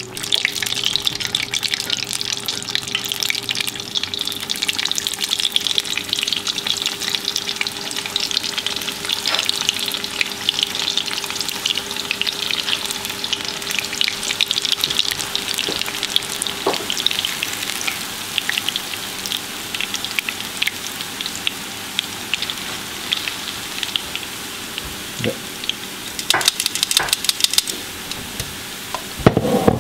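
Batter and battered fish deep-frying in hot oil in a cast-iron skillet: a steady, dense sizzle and crackle of bubbling oil. A faint steady hum stops a little over halfway through.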